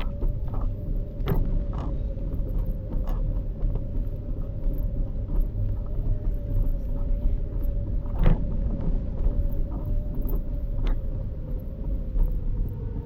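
Scooter motor whining at a steady pitch while riding, over a low rumble of wheels on the street, with scattered knocks and rattles, the loudest about 8 seconds in.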